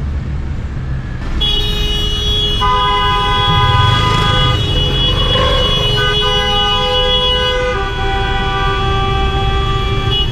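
Several car horns held down at once in slow city traffic, sounding long, overlapping blasts over the low rumble of the van's engine and road noise; the horns start about a second in and change as one stops and another joins.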